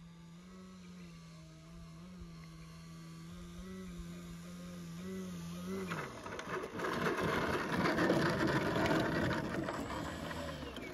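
Electric motor and 15x8 propeller of a large RC aerobatic plane humming at low throttle on the landing approach, its pitch stepping up and down slightly with the throttle. About six seconds in the pitch drops, and a louder rough rushing and rattling takes over as the plane rolls across the dry grass strip.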